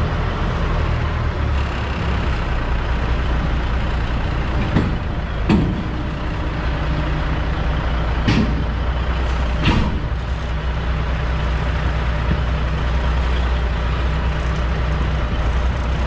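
Diesel semi-truck engine idling steadily, with a few brief sharp sounds around five and nine seconds in.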